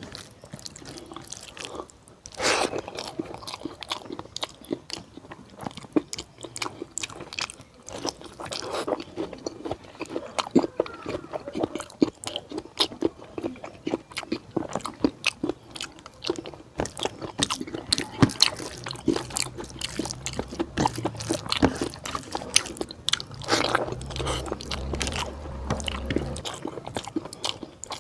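Close-miked eating: a person chewing and biting mouthfuls of fatty pork curry and rice, with a steady run of wet mouth clicks and occasional crunches, louder bites now and then.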